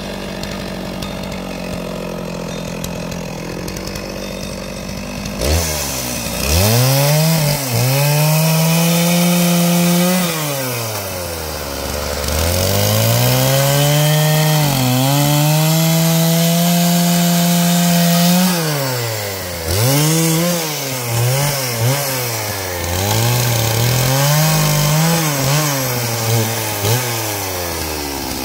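Stihl two-stroke chainsaw idling steadily, then revved sharply about five seconds in. It is held at high revs for a few seconds at a time with the pitch dropping back between two long runs, then given a string of short throttle blips.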